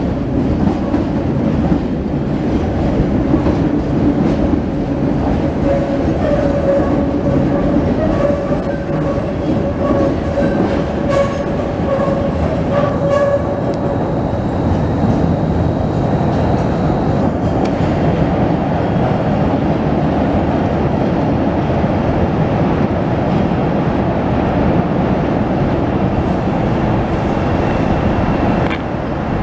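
Chicago Transit Authority 'L' rapid-transit train running on the steel elevated structure: a loud, steady noise of wheels on the rails, with a whining tone over it for several seconds in the middle.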